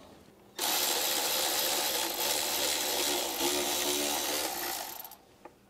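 Cordless ratchet running steadily for about four and a half seconds, spinning out a valve cover bracket bolt on a 7.3 Powerstroke diesel. It starts about half a second in and stops shortly before the end.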